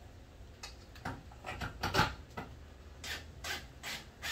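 Hand work on a minivan's metal roof rail: a run of short scraping, rubbing strokes, irregular at first, then settling into about five even strokes a little over two a second.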